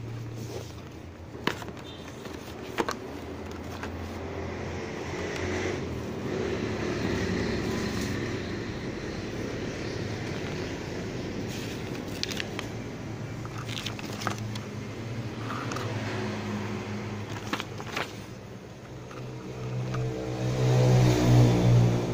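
Hands handling a clipper's packaging: sharp clicks and knocks from the cardboard box and its plastic inner tray, and rustling of the paper manual being unfolded. Under it runs a steady low hum that grows louder near the end.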